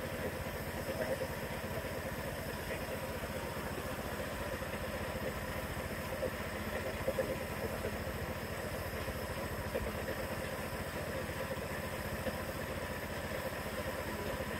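Piston air compressor running steadily with a fast, even pulse, feeding a gravity-feed spray gun that hisses as it sprays paint.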